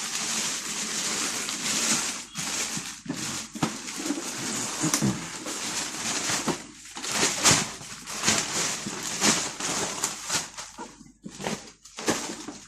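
Plastic packaging bag rustling and crinkling irregularly as a printer is pulled out of it and unwrapped, with a few short pauses.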